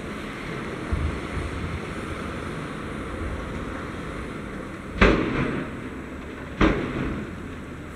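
Tatra 815 tipper truck's diesel engine running steadily while its raised body tips rock, with two loud bangs about a second and a half apart past the middle.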